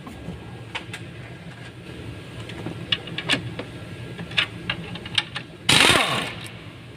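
Sharp metallic clicks and clinks of a socket wrench working a bolt on a turbocharger, with one louder rasping burst just before six seconds in. A steady low hum runs underneath.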